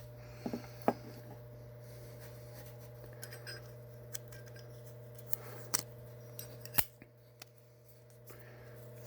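A few sharp clicks and light taps of small objects being handled, scattered over several seconds, with the loudest near the start and about two-thirds through, over a steady low electrical hum.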